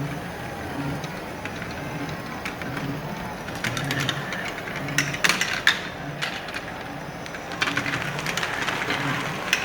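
Rapid clusters of sharp clicks from marbles knocking into each other and the walls in a simulated marble soccer game, coming in bursts about midway and again near the end. Under them runs a steady background bed of crowd noise with a low repeating pulse.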